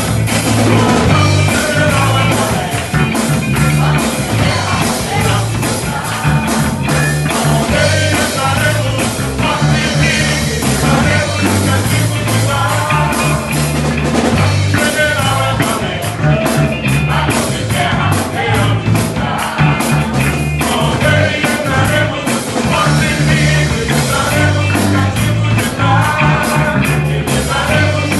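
Gospel band playing a rock-style song, with a singing voice over a pulsing bass line and steady drums.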